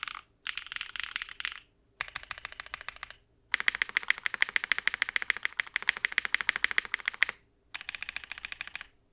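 Fast typing on a 60% custom mechanical keyboard with an O-ring-mounted polypropylene plate, Kailh BCP linear switches and GMK ABS keycaps: dense runs of many keystrokes a second, clacking with short pauses between runs. The longest and loudest run is in the middle.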